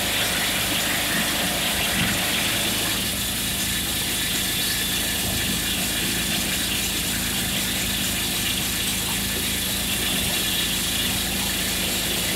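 An engine running steadily at an even speed, a constant hum with hiss and no change in pitch.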